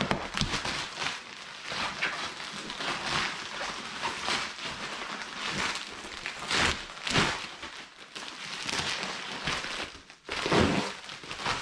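A cardboard shipping box being cut and worked open: its packing tape and cardboard give a run of irregular scraping, rustling and tearing noises, loudest about ten and a half seconds in.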